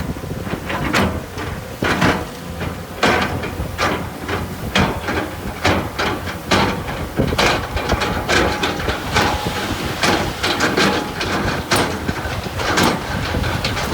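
Heavy earthmoving machine running with a steady low engine rumble, under many irregular clanks and knocks of stones and gravel being shifted.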